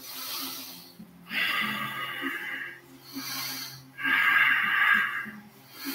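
A man breathing hard through the effort of prone leg lifts (locust pose), with short breaths alternating with longer, louder ones, about one round every three seconds.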